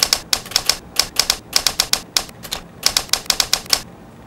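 Typewriter keystroke sound effect: quick clacking keystrokes in short irregular runs, stopping near the end, as a caption types itself out letter by letter.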